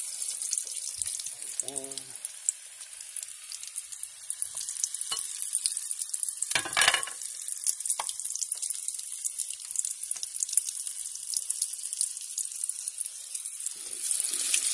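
Battered green tomato slices deep-frying in hot oil: a steady sizzle full of small crackling pops, with a brief louder rush of sizzling about seven seconds in.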